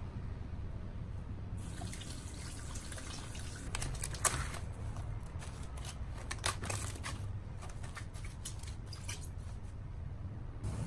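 Plastic cling film being pulled out and stretched over a glass bowl: irregular crinkling and crackling with a few sharper snaps, the loudest about four seconds in, over a low steady hum.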